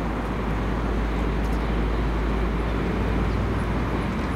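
Steady outdoor city background noise, a traffic-like hum over a deep, constant low rumble, with no distinct events.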